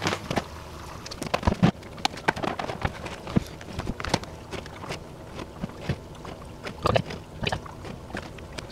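Irregular light clicks and knocks of aquarium cleaning gear being handled at the tank, a gravel-vacuum siphon among it, over a faint steady low hum.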